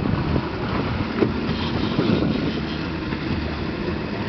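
Mercury Optimax two-stroke outboard running steadily, the one of the boat's pair still working after the starboard engine's compressor failed, with wind noise on the microphone.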